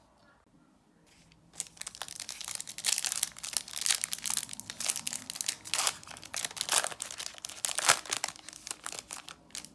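Foil-lined Topps trading-card pack wrapper crinkling and crackling as it is opened and the stack of cards is pulled out. It starts about a second and a half in and is loudest near the end.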